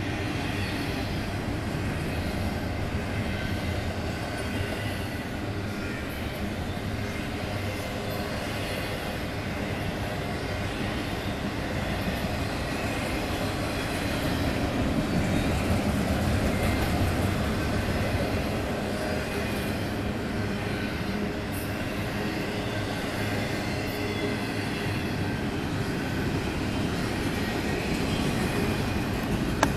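Norfolk Southern double-stack intermodal freight train's well cars rolling past, a steady rumble of steel wheels on rail that grows somewhat louder about halfway through.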